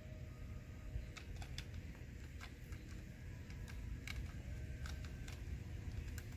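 Small hard plastic Paw Patrol toys clicking and clacking irregularly as they are handled and fitted together, a dozen or so sharp little clicks.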